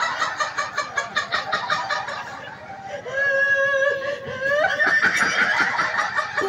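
A man's cackling laughter through a microphone and loudspeaker, broken about three seconds in by a long held vocal note that bends upward at its end, then more laughing.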